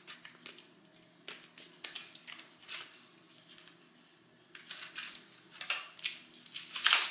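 Scattered small clicks, rattles and clinks of TiN-coated HSS drill bits and their plastic case being handled while a drill bit is changed. The clicks are busiest and loudest in the last few seconds.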